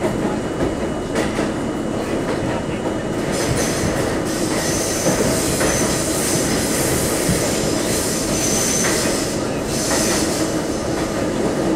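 New York City subway train running through a tunnel: a steady rumble of steel wheels on rail with occasional clicks of rail joints. For about six seconds in the middle, a high-pitched wheel squeal rises over the rumble and then stops.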